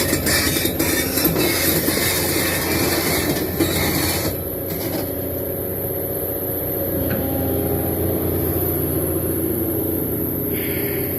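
Excavator running: a steady diesel engine rumble with rougher, noisier mechanical sound in the first four seconds, settling steadier after that.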